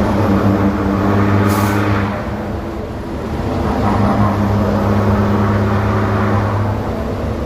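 A motor vehicle engine running at a steady pitch; it eases off briefly around two to three seconds in, then picks up again. There is a short hiss about a second and a half in.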